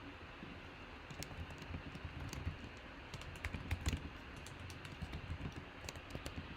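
Faint, irregular typing clicks on a computer keyboard.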